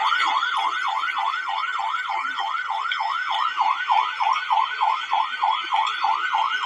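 Electronic siren sounding in a fast, evenly repeating up-and-down sweep, about three cycles a second, over a steady hiss.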